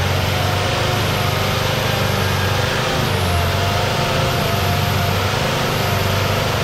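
Off-road 4x4's engine running hard at steady revs while it churns through deep mud, its front wheel spinning and throwing mud.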